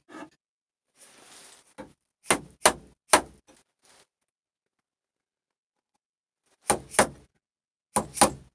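A chisel being struck to chop a lap-joint recess in a wooden rail: a light tap and three sharp blows about two seconds in, then two quick pairs of blows near the end, with a faint scrape of the blade before the first strikes.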